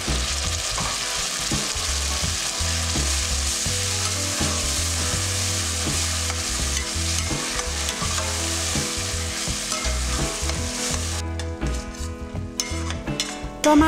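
Tomato paste sizzling in hot oil with fried onions in a stainless steel kadai, stirred with a spatula scraping the pan; the sizzle drops away about eleven seconds in. Background music runs underneath.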